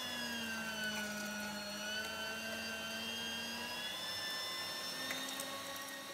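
Electric meat grinder running with a steady motor whine as it minces raw meat, fading away near the end.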